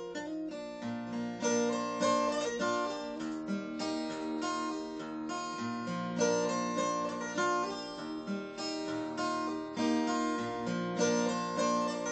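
Acoustic guitar with a capo played fingerstyle: a picked melody over ringing bass notes, the notes sustaining into one another.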